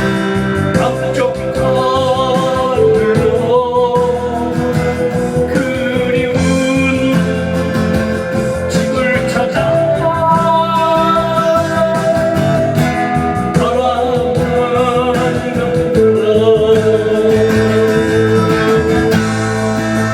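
A song: a voice singing held, wavering notes over guitar accompaniment.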